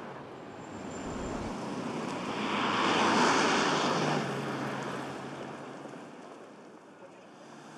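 A vehicle passing by, its noise swelling to a peak about three seconds in and then fading away, leaving a low steady hum.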